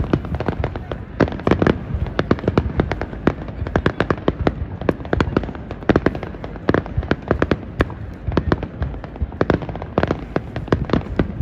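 Aerial fireworks bursting in a continuous barrage: a dense run of bangs and crackles, several a second, all the way through.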